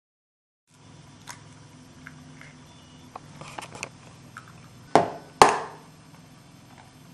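Eggs being cracked into a plastic container of dry mix: a few small eggshell clicks, then two sharp knocks less than half a second apart as an egg is rapped against the container's rim.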